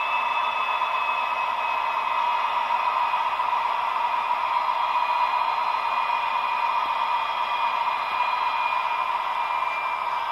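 Recorded DB 218 diesel locomotive engine sound (MTU TB11 twelve-cylinder) played through a small model-locomotive speaker: a steady, thin engine noise with no bass, and a faint whine that slowly falls in pitch as the engine winds down.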